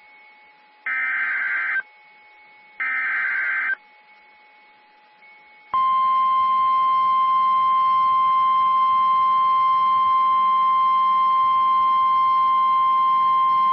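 NOAA Weather Radio emergency alert signal: two harsh, buzzy digital data bursts about a second long, each followed by a short gap, then, about six seconds in, the loud steady single-pitch Warning Alarm Tone. This is the signal that comes before a broadcast severe thunderstorm warning.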